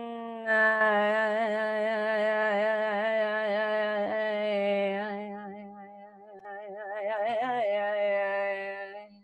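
A woman's voice toning one long held note, steady in pitch with a slight waver, its vowel sound shifting as it goes; it dips in loudness about two-thirds through, swells again and stops just before the end.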